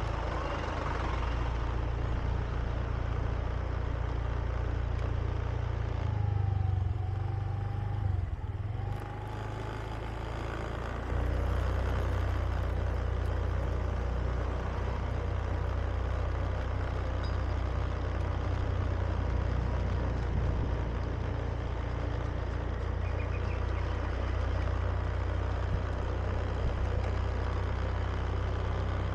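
Riding on a Honda Beat scooter: the scooter's engine runs under a steady low rush of wind on the camera's microphone, with a truck close alongside at the start. Partway through the sound eases briefly, then comes back louder as the scooter picks up speed again.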